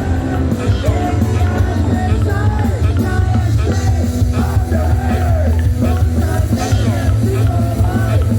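Punk rock music with a shouted, sung vocal line over heavy bass and drums.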